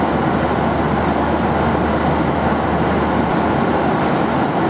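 Steady rush of airflow and engine noise inside a Boeing 737-800 in cruise flight at high altitude.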